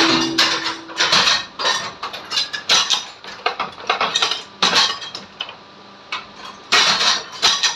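Metal diya-making press stamping clay lamps: a rapid, irregular clatter of metal knocks and clanks. It pauses for about a second and a half past the middle, then resumes.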